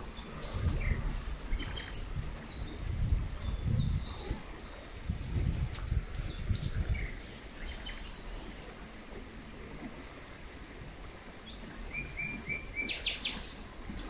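Small songbirds chirping and singing over the steady rush of river rapids, with a quick run of repeated notes near the end. Low rumbling bursts come and go through the first half and are the loudest sound.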